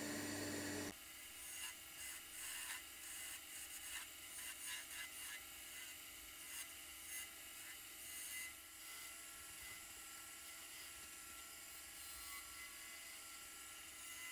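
Wood lathe running with a faint steady whine while a tool scrapes and ticks lightly against the spinning cherry spindle of a honey dipper. A louder hum cuts off about a second in.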